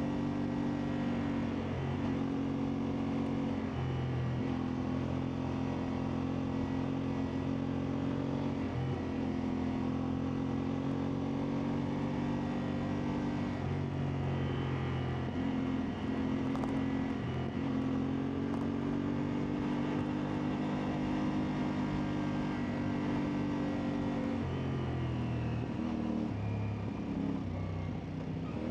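CFMoto 450MT's parallel-twin engine running under way off-road, its note holding steady for stretches, then dipping and climbing again several times as the throttle and gears change.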